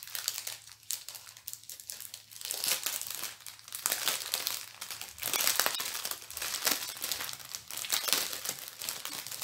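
Packaging of a diamond painting kit being opened and handled by hand: an irregular run of crinkling, loudest about five to six seconds in and again near eight seconds.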